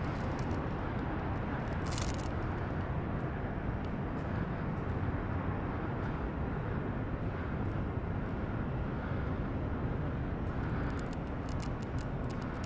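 Steady low rumble of outdoor city ambience, with a few faint sharp ticks about two seconds in and a cluster of them near the end.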